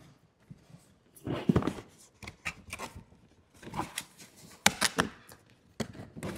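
Cardboard packaging being handled: a product box slid and set on a table and its lid flap pulled open, with irregular scrapes and rustling and a few sharp snaps and knocks about two-thirds of the way in.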